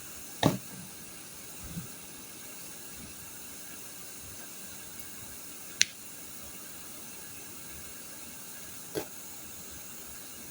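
Steady hiss with three short sharp clicks or knocks: one about half a second in, one near the middle, one near the end.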